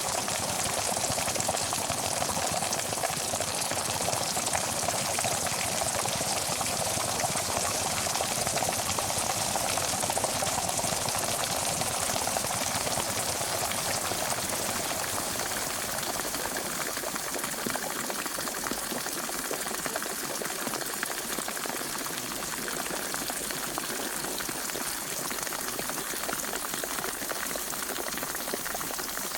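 Pot of water at a rolling boil: a steady, dense bubbling and popping of bubbles bursting at the surface. The low rumble eases a little about halfway through.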